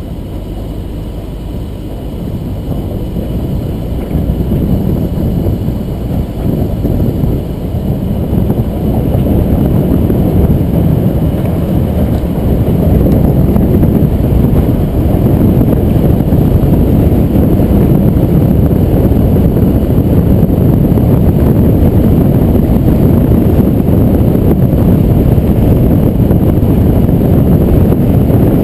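Jeep Cherokee driving on a gravel track, heard from a hood-mounted camera: a steady, loud rumble of wind on the microphone and tyre noise, growing louder over the first dozen seconds and then holding steady.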